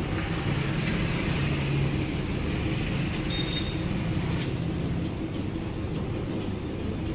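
Steady low background hum, with a few clicks and rustles as a nylon cast net with lead sinkers is handled; the sharpest click comes about four and a half seconds in.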